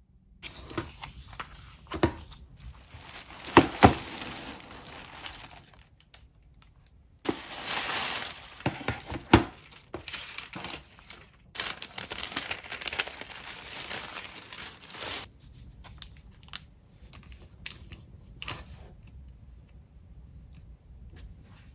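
Crinkling and rustling of a shopping bag and packaging as items are unpacked by hand, with a few sharp crackles. There is a short lull about six seconds in, then louder rustling. After about fifteen seconds the handling becomes lighter and sparser.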